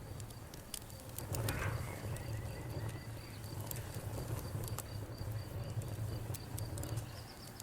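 Wood fire crackling, with scattered sharp pops over a low steady rumble. A cricket chirps steadily in the background.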